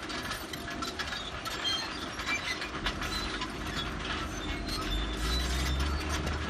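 Excavator working, its metal parts clanking and squealing irregularly, with a low engine drone that grows louder over the last second and a half.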